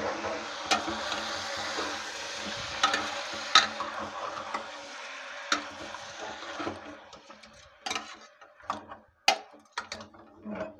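Metal ladle stirring chicken pieces in an aluminium pressure cooker, scraping and clinking against the pot's sides several times, over a steady hiss of the chicken cooking in oil that stops about two-thirds of the way through.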